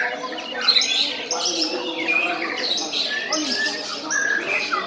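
Many caged songbirds singing at once: a dense, unbroken chorus of overlapping chirps, trills and whistles.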